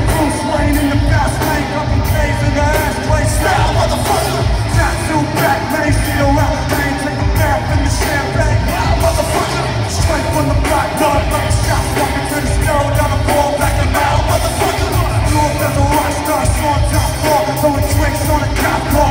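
Rap-rock band playing live, with a drum kit and a heavy low end, and a vocalist singing into a microphone over it, recorded from the crowd.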